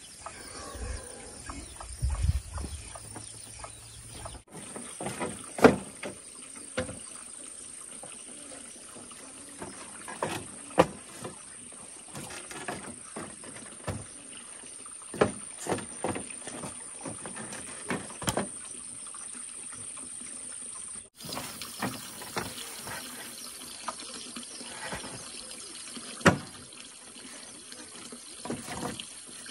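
Irregular knocks, taps and rustles of hands handling plastic flower pots, potting soil and plants, with pots set down on a bamboo rail, over a steady faint outdoor hiss.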